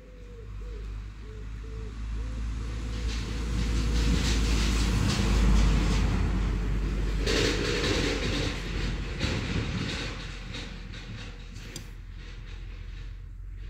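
A vehicle passing by: a low rumble and rushing noise that builds over about five seconds, peaks, then fades away.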